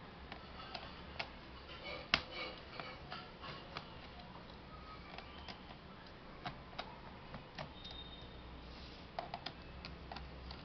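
Irregular small clicks and taps of a laptop's parts being handled and fitted during a repair, with one sharper click about two seconds in and a quick run of clicks near the end.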